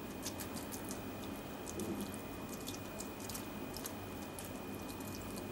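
Faint, irregular soft crackles and ticks of sponge cake pieces soaking up sweet sherry poured over them from a measuring cup.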